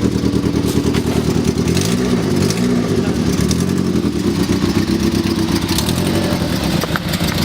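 Car engine running at idle, with two short rises and falls in engine speed about two seconds in.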